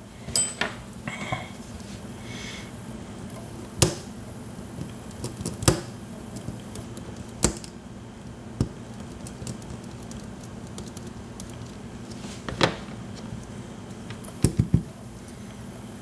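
Scattered small metallic clicks and taps from a Schlage large-format interchangeable lock core being handled and worked apart with a small pick tool, with a quick cluster of clicks near the end.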